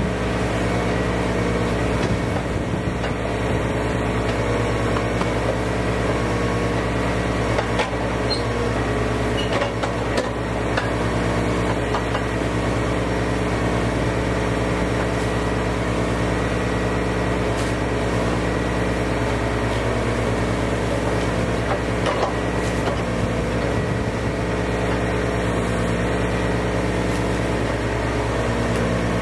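A work machine's engine running steadily at constant speed, with a few light knocks and clicks.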